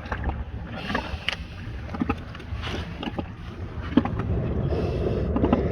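Wind rumbling on the microphone, with scattered short knocks and scrapes, the sharpest about a second in and again near four seconds.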